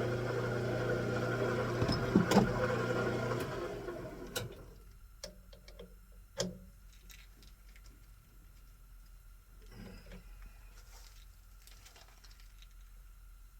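Metal lathe running with a steady hum and a couple of sharp knocks, then switched off and spinning down to a stop about four seconds in. After that come scattered clicks and taps of metal parts being handled.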